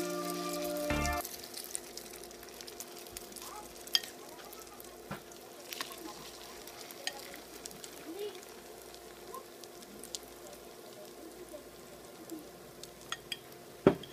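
Cabbage-and-egg omelette mixture frying in shallow oil in a nonstick pan: steady sizzling with scattered pops and crackles. Background music cuts off about a second in, and a sharp knock sounds near the end.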